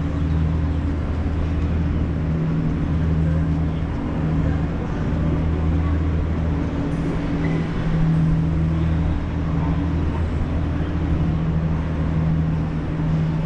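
Steady low mechanical hum with a few stacked tones that swell and fade gently, over a haze of street noise.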